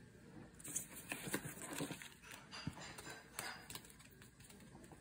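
Faint clicks and rustling of cards in hard plastic holders being picked up and handled, a few light clicks scattered through, busiest in the first two seconds.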